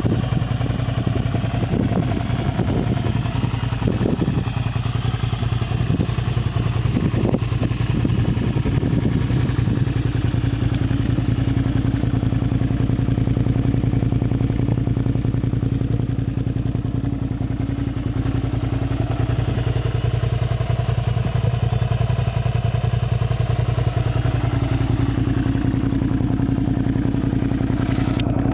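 Suzuki SV650 motorcycle's 645 cc V-twin running steadily at idle through an aftermarket Scorpion exhaust, with a few short knocks in the first several seconds.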